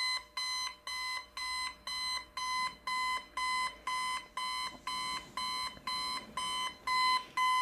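Alarm clock going off: a steady, unbroken run of identical high-pitched beeps, a little over two a second.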